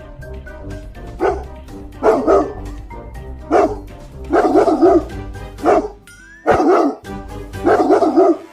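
Dog barking, single barks and quick runs of several, about seven bursts in all, over background music with plucked notes and a bass line.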